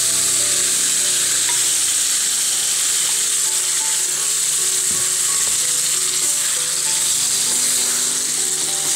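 Cut boiled lemon pieces frying in hot sesame oil with mustard seeds and chili powder, a steady sizzle.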